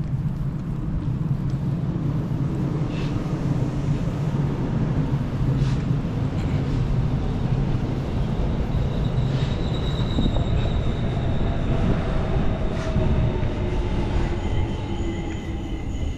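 A train passing: a steady low rumble of rolling railcars, with a high-pitched wheel squeal setting in about ten seconds in.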